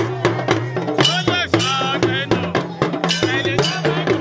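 Festive Yoruba drum music: quick, steady drum strokes with a bell-like beat over a low sustained bass line, including a talking drum played with a curved stick. Voices sing in short phrases over it about a second in and again near three seconds.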